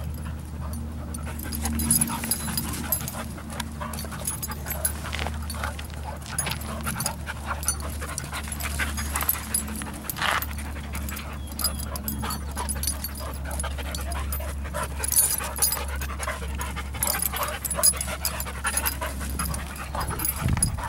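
Two dogs at jowl play, mouthing and wrestling each other, giving a string of short, irregular mouth and breathing noises. A steady low rumble runs underneath.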